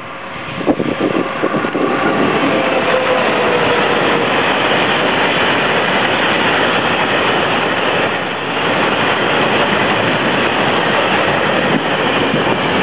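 SNCF BB 22200-class electric locomotive hauling a train of hopper wagons past at speed. The loud rolling rumble and clatter of the wagons' wheels on the rails starts abruptly about a second in and stays steady. A faint tone falls in pitch as the train goes by, a few seconds in.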